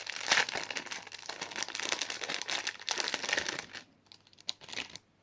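Packaging crinkling as it is handled and opened: a dense run of crackles for nearly four seconds, then a few scattered crackles near the end.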